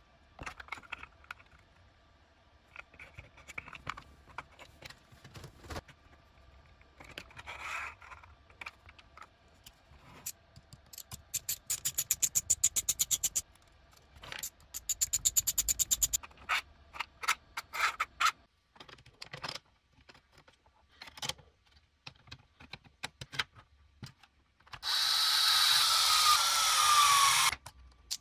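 Handling and assembling 3D-printed plastic parts: scattered clicks and knocks of pieces fitted together, two runs of rapid clicking in the middle, and a steady whir lasting about three seconds near the end.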